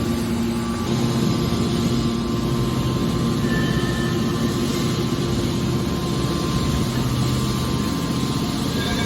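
Hydraulic scrap metal baler running steadily, its power unit giving a continuous low hum with a few steady tones over machine noise.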